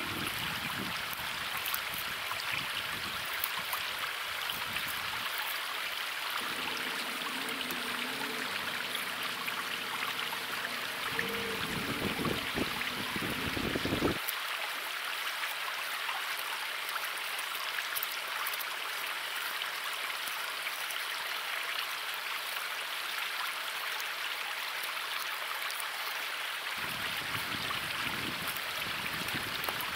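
River water rushing steadily over rocks, an even, unbroken rush.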